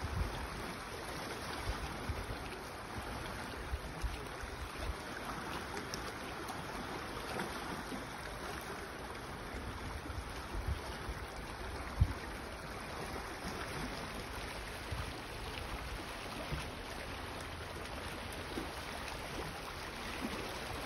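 Calm sea water lapping gently at shoreline rocks as a steady wash, with occasional low thumps, the loudest about twelve seconds in.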